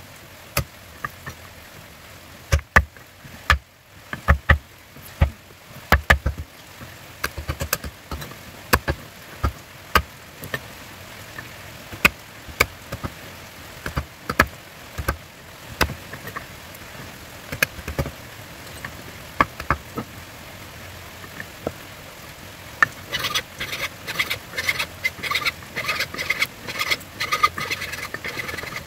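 A hand chisel chopping and paring a wooden knife handle against a wooden block, giving irregular sharp knocks and clicks. About 23 seconds in, this gives way to the fast, rough scrape of a file rasping along the wooden handle.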